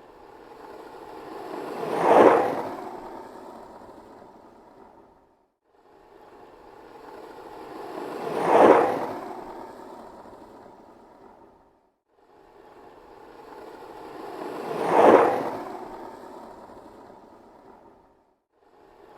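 Skateboard rolling past three times, the wheels' rumble swelling to a peak as it passes and fading away, with a short gap between passes.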